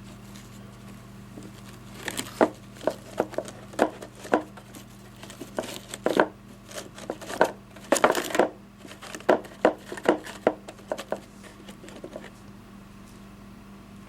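Irregular crinkling rustles and sharp clicks, as of objects being handled, starting about two seconds in and stopping near the end, over a steady low hum.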